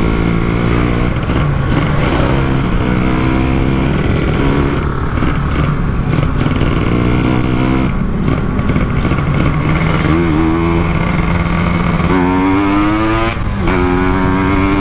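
Two-stroke Kawasaki Ninja 150 engine in an RX King motorcycle under way, its pitch climbing and dropping back several times as the rider accelerates.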